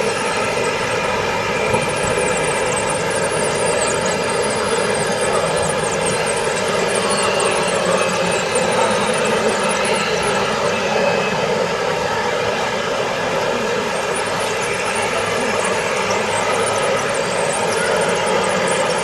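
Radio-controlled construction models running: a steady motor whine made of several even tones, with faint high crackling through the first half and again near the end.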